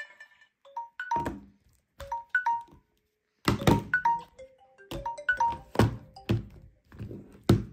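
A phone ringtone plays a repeating melody of short, high plinking notes, while phones in a pile knock and clatter as they are picked up and set down on a table. There is a brief pause about three seconds in.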